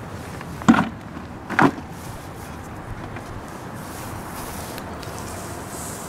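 Steady noise of road traffic passing close by, with two short knocks about a second apart near the start.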